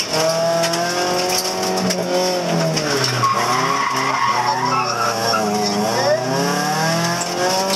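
Rally car engine heard from inside the cabin, its revs rising and falling through gear changes and a corner, with a dip in pitch about three seconds in and again near six seconds before it pulls hard again. Tyres squeal through the corner around the middle.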